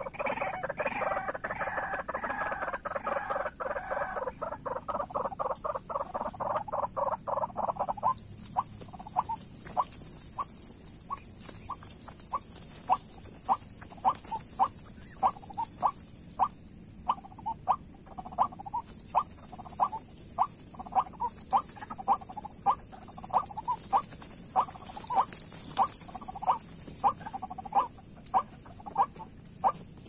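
White-breasted waterhens calling: a fast unbroken run of notes for about the first eight seconds, then short single notes repeated about one and a half times a second.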